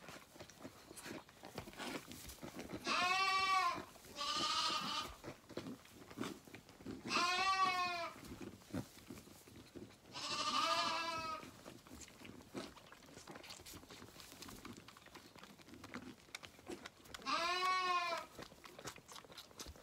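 Zwartbles lambs bleating at bottle-feeding time: five quavering bleats of about a second each, spaced irregularly, with faint rustling and clicks between them.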